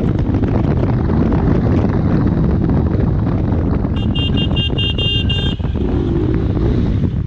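Wind rushing over a helmet-mounted action camera, with a KTM Duke 390's single-cylinder engine running underneath while riding in traffic. About four seconds in, a vehicle horn beeps six times in quick succession, over about a second and a half.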